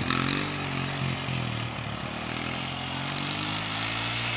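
Small dirt bike engine running while being ridden. Its pitch dips about a second and a half in, then holds steady and climbs a little near the end.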